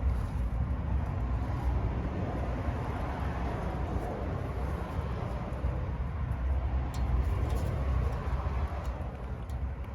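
Steady low outdoor rumble with no pitched engine note, with a few faint clicks about seven seconds in.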